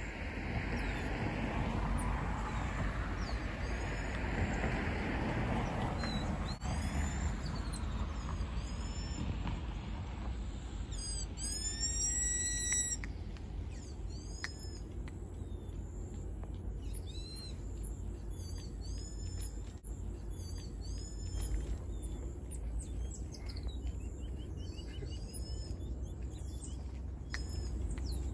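Repeated short, high-pitched chirping calls, most dense about eleven to thirteen seconds in, over a steady low rumble.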